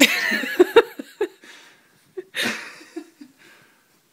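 Chihuahua making its coffee-pot-like vocal sounds while getting a scratch: a wavering, pitched run with a few sharp pops in the first second and a half, and another short burst about two and a half seconds in.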